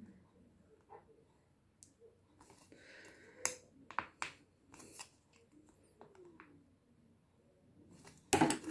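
The end of a paintbrush pressing and scratching a design into a thin tin-can wing on a soft cloth: faint scattered scratches and small clicks. Near the end comes a louder crinkling of the thin metal as it is handled.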